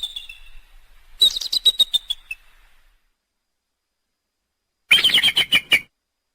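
Bald eagle calling: two bursts of rapid, high-pitched chattering notes, each about a second long and a few seconds apart, the first slipping slightly down in pitch.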